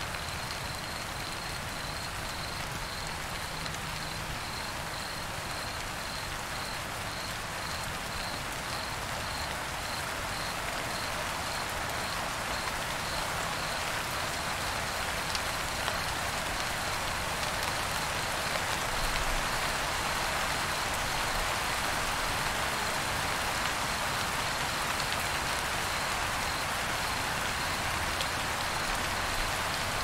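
A cricket chirping in an even, regular rhythm over a dense steady hiss that swells a little after the first third.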